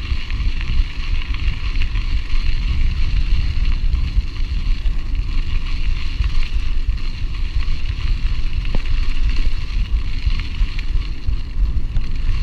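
Wind buffeting the microphone of a camera riding on a mountain bike, a heavy steady rumble, over the continuous hiss and crunch of knobby tyres rolling on a gravel road.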